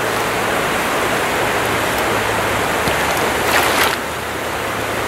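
Shallow, rocky stream flowing, a steady rush of water. A short, louder hiss comes a little before four seconds in.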